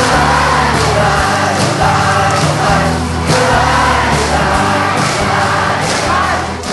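Loud song with a steady beat and sung voices.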